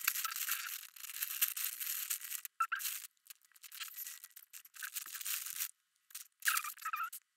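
Scratchy, hissy strokes of colouring on a sheet of paper, coming in uneven bursts with a brief pause a little before the end.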